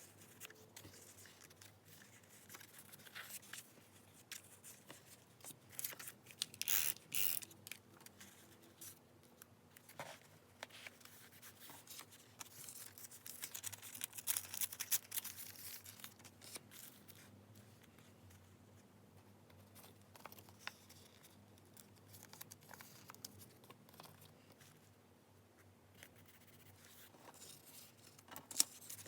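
Close-up paper crafting sounds for journal decorating: paper rustling and handling, with scissors cutting and paper tearing. They come in irregular short bursts, busiest about a quarter of the way in and again around the middle, with a sharp click near the end.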